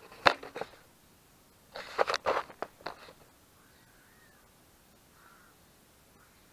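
Handling knocks and rubbing as a small action camera is picked up and repositioned: one sharp knock, a few lighter ones, then a short cluster of harsh scraping knocks about two seconds in.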